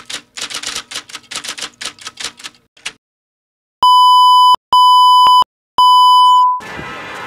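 Electronic typing-sound effect: a quick run of clicking keystrokes, one for each letter of a title as it is typed. After a short gap come three loud electronic beeps at one steady pitch, each about three-quarters of a second long. Near the end a noisy outdoor background comes in.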